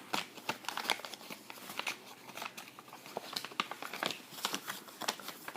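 Paper being folded and creased by hand, with irregular crinkling and rustling.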